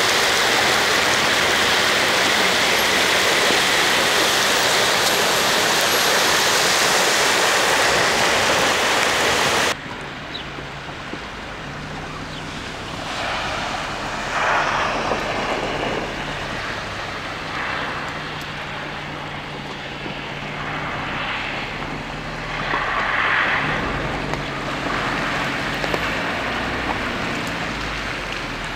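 Muddy floodwater rushing and churning across a paved street, a loud steady rush. It cuts off abruptly about ten seconds in, giving way to a quieter stretch with a low steady hum and several passing swells of rushing noise.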